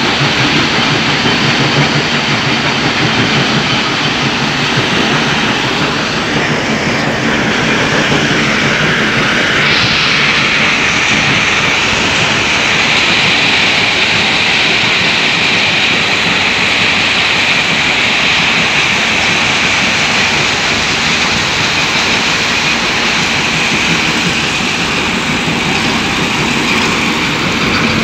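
A stone crushing plant running: a steady, loud mix of machinery noise and crushed stone pouring off a conveyor onto a stockpile. A hissing upper band grows stronger about ten seconds in.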